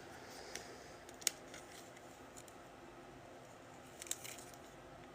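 Faint handling of trading cards and packs: soft rustles with a few sharp little clicks, one about a second in and another about four seconds in.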